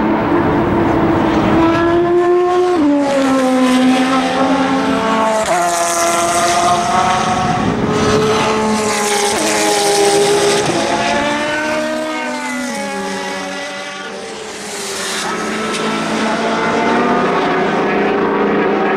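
Endurance race cars accelerating past one after another, their engines climbing in pitch and dropping back at each upshift, with several engines heard at once. The sound eases briefly about fourteen seconds in, then builds again as the next car comes.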